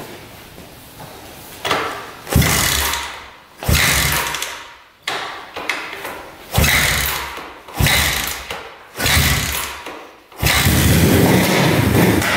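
The 1974 Honda CB360's parallel-twin engine being cranked over in a series of short starting attempts, each starting suddenly and fading, about one every second and a half. A longer, steadier attempt of about two seconds comes near the end.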